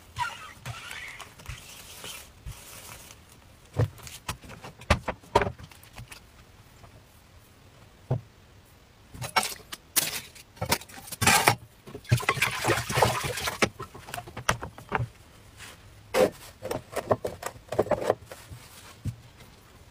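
Handling sounds at an electric crepe maker: a plastic spatula brushing over batter at the start, then scattered taps and knocks, and two short rustling, crackling stretches near the middle as the thin cooked wrapper is handled and peeled off the plate.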